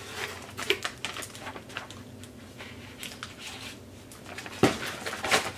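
A plastic treat pouch crinkling and rustling in the hands as a jerky stick is pulled out, with scattered small crackles and two louder crinkles near the end.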